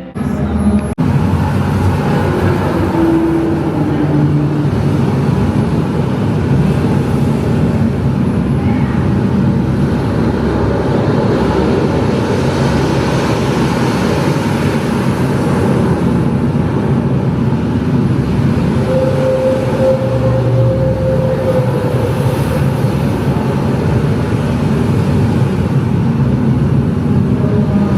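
A vehicle in motion: a loud, steady rumble and rush of noise that cuts in suddenly at the start, with a few brief pitched tones over it.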